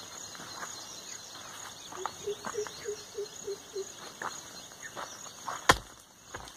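A heavy stone block is set down on dirt with one sharp thud about three-quarters of the way in, with light rustling as it is handled. Insects chirr steadily throughout. A short run of about seven quick notes comes in the middle.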